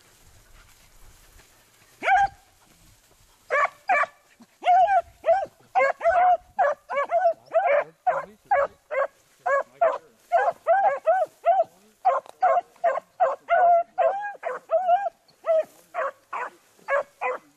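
Beagles baying as they run a rabbit's scent line: a single bark about two seconds in, then a steady string of short, arching yelps at about two a second.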